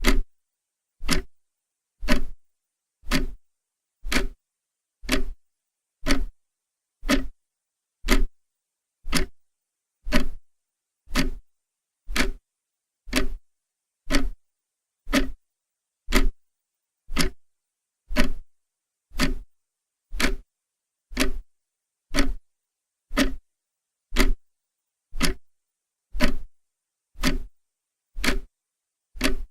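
Clock ticking steadily, one sharp tick about every second, with silence between the ticks.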